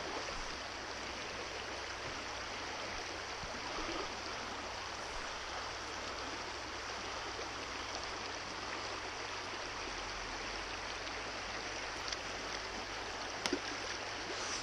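Shallow trout stream running over a riffle: a steady rush of water, with a couple of small clicks near the end.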